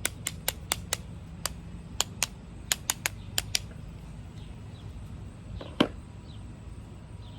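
Lip gloss tubes and lipsticks clicking and tapping as they are handled and set into a storage container. A quick run of about a dozen sharp clicks comes first, then after a pause one louder knock.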